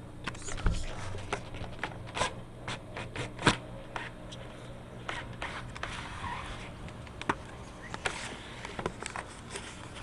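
Camera handling noise: irregular clicks, knocks and short scrapes as the camera is moved about, the loudest knocks about a second in and around three and a half seconds in.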